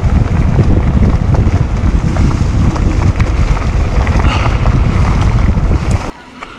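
Wind buffeting the microphone of a camera on a mountain bike riding fast down a leaf-covered dirt trail, mixed with the rumble of the tyres and small clicks and rattles from the bike. The noise cuts off abruptly near the end.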